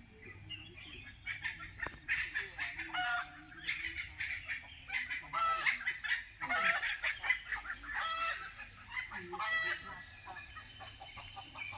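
Domestic fowl clucking: a busy run of short, repeated calls.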